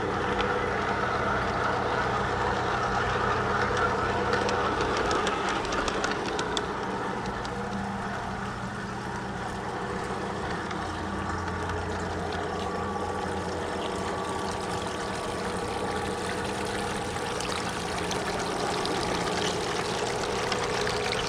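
Garden-scale model train rolling along outdoor track, heard from a car riding in the train: a steady rumble and hum with scattered light clicks from the wheels and rails.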